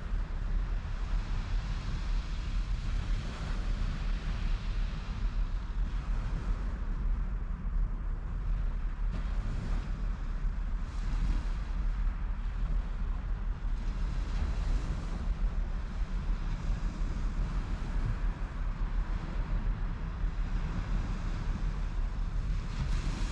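Wind buffeting the microphone in a steady low rumble, with surf breaking on the beach, swelling briefly a few times.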